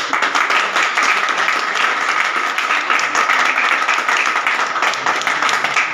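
A small group of people applauding: loud, dense, steady hand clapping.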